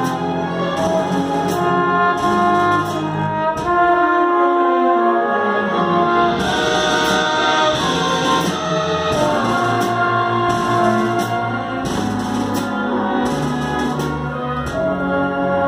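A school orchestra playing live: strings, woodwinds and brass sustaining chords together. The low bass parts drop out briefly about four seconds in and return about two seconds later.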